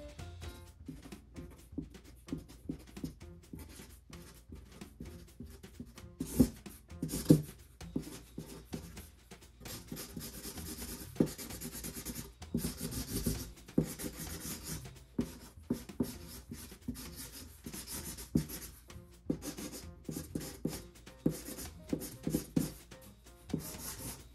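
Felt-tip marker drawing on a cardboard box: quick, irregular scratchy strokes and light taps as the tip is pressed and dragged across the card, with a few firmer knocks along the way.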